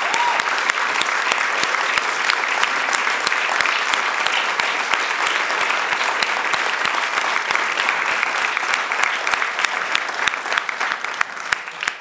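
Large audience applauding steadily, many hands clapping at once, the clapping thinning out near the end.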